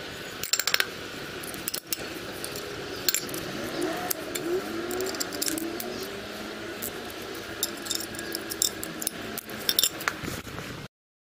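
Light metallic clicks and clinks of a brush cutter's steel muffler and small parts being handled and fitted against the engine, over a steady background hum. The sound cuts off abruptly near the end.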